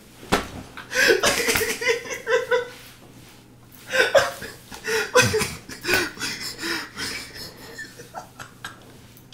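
A man laughing hard in two long fits with short pauses between, starting about a second in and again around four seconds in.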